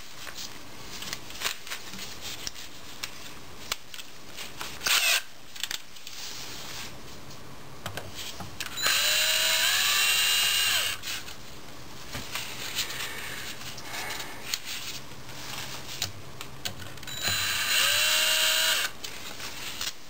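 Ryobi 18-volt cordless drill-driver spinning out a freshly hand-loosened bolt from a 4L80E transmission case, the fourth clutch housing retaining bolt. It runs twice, about two seconds each, the runs some seven seconds apart. Each run opens with a rising whine that then holds steady. In between come light clicks and a brief clatter of tools and parts being handled.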